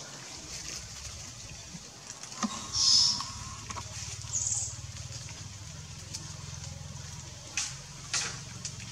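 Outdoor forest ambience: a steady low hum under a few brief high-pitched squeaks, the loudest about three seconds in and another a second and a half later, with two short sharp sounds near the end.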